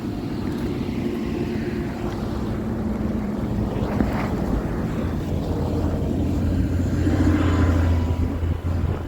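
A motor vehicle's engine running with a steady low hum that grows gradually louder over several seconds.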